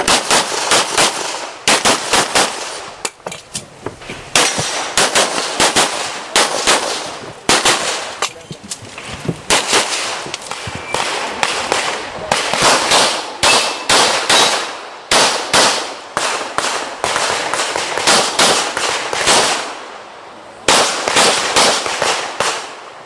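Pistol shots fired in fast strings of several shots a second, with short pauses between strings as the shooters move.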